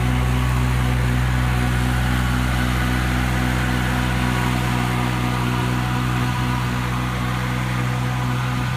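Fiori Miniload 1200 mini loader's engine running at a steady speed as the machine drives off, a little quieter near the end.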